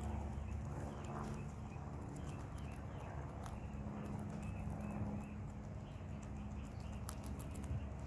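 Several guinea pigs munching grass and leafy greens: a busy, continuous run of quick crunching and tearing chews.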